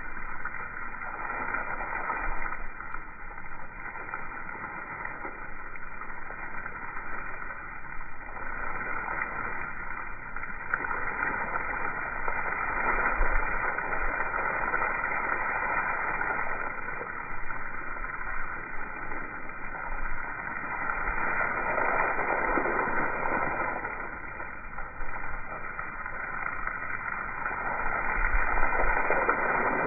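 Garden hose spray hitting wet gravel, played in slow motion so it comes out as a muffled, low hiss that swells and fades several times as the spray sweeps past.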